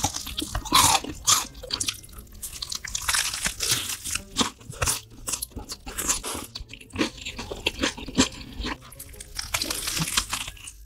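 Crunching and chewing of a breaded fried chicken burger with shredded cabbage, taken in huge bites. The crisp coating gives dense, sharp crackles throughout.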